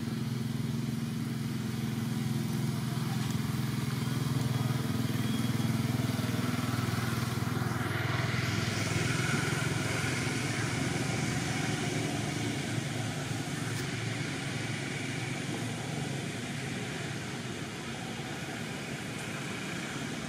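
A motor engine running steadily with a low hum that weakens about eight seconds in, as a steadier, higher hiss comes up.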